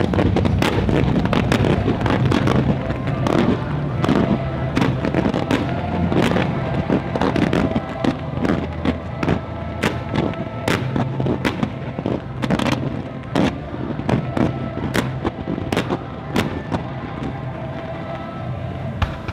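Rapid barrage of aerial firework shells bursting, dozens of sharp bangs and crackles in quick succession, over an orchestral show soundtrack played through loudspeakers.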